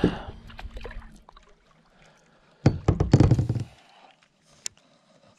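Handling knocks on a kayak: a light knock at the start, then a loud cluster of dull knocks and thumps lasting about a second as the rod and arm move against the boat, and a single sharp click near the end.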